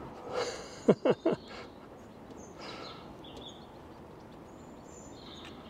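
Steady outdoor background noise, with three short pitched calls in quick succession about a second in.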